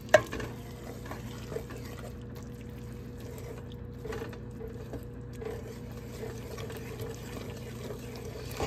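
Wooden spoon stirring creamy macaroni and cheese in a metal pot: soft, wet stirring sounds over a steady low hum, with one sharp knock just after the start.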